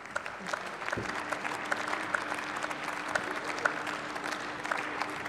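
Applause from members of parliament: many hands clapping at once. A faint steady hum comes in about a second in.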